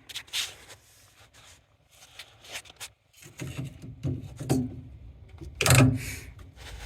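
Hands working on a UTV's parking brake lever and cable: scattered clicks, scrapes and rubbing, with a louder thump near the end.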